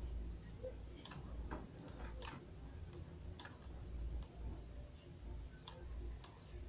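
Faint, irregular clicks of a computer mouse and keyboard, about eight spread over a few seconds, over a low steady hum.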